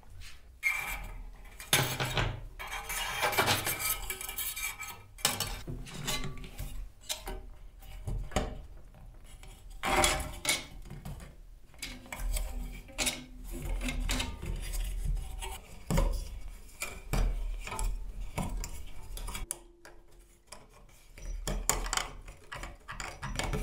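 Thin steel wire handled against a wooden post, pulled through a hole in it and twisted tight by hand: irregular metallic scraping and clicking, with a short lull about two thirds of the way in.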